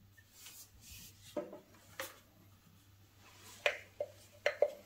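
A gloved hand handling the Mi Smart LED Desk Lamp Pro's round lamp head and arm. Soft rubbing, then a string of light clicks and taps, about six, with the loudest near the end.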